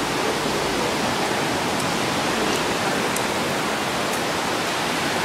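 Heavy rain pouring down steadily in a thunderstorm, with a few faint ticks.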